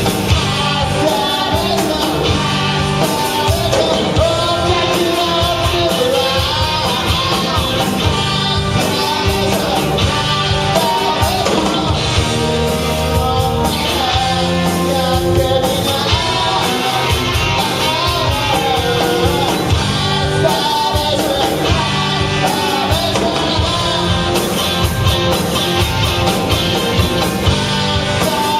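Rock band playing a song, with a voice singing over the full band at a steady, loud level.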